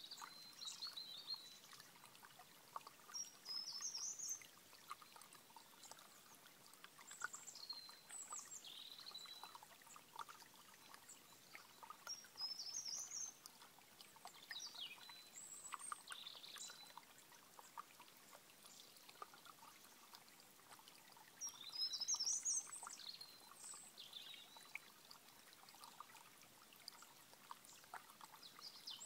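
A shallow stream trickling over stones, with small birds singing short chirping phrases every few seconds, the loudest about two-thirds of the way through.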